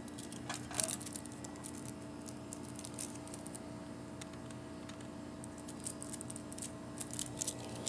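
Steady electrical hum of vending machines running, with a few light clicks and rattles about a second in and again near the end.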